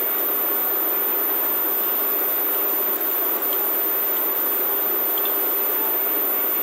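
Steady background hiss with a faint low hum running under it, no speech.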